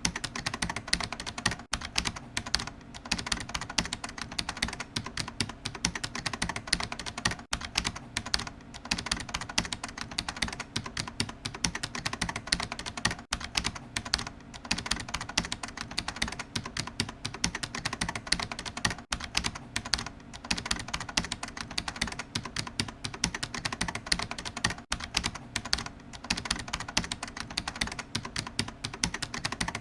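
Continuous rapid typing on a computer keyboard, a dense stream of key clicks with only brief pauses.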